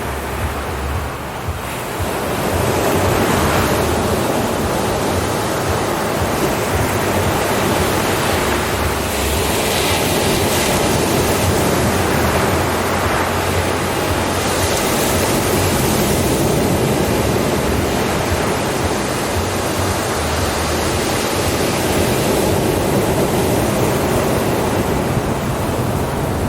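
Ocean surf: waves breaking and washing in, a continuous rushing that swells with each wave every five or six seconds.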